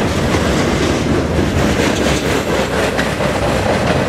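Freight train boxcars rolling past at close range: a steady, loud rumble of steel wheels on the rails.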